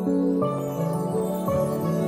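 Soft background music of slow, gentle held notes that change every half second or so.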